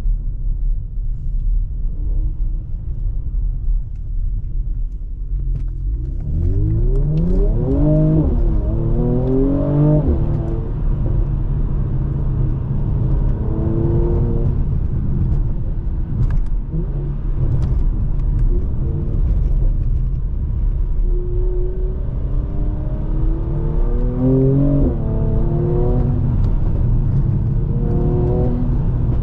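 2020 Mercedes-AMG C43's 3.0-litre twin-turbo V6 accelerating hard, its pitch climbing and then dropping at each upshift, twice in quick succession about a quarter of the way in and again near the end, over a steady low road rumble.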